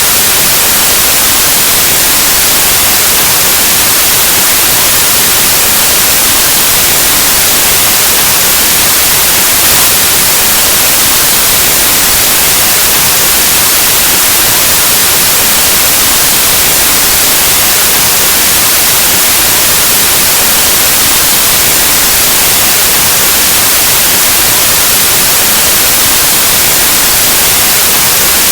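Steady, loud white noise: an even hiss of static, like an untuned analog TV or radio.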